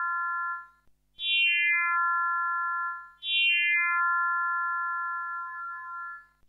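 Raspberry Pi wavetable synthesizer playing a swept formant wavetable patch. A held note fades out about half a second in. Two new notes follow, about a second and about three seconds in, each opening with a quick falling sweep in steps and settling into a steady bright tone that slowly dies away.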